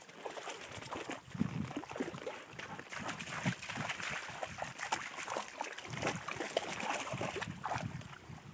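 Horse's hooves splashing and squelching through shallow muddy water at a walk, an irregular run of wet splashes and dull thuds.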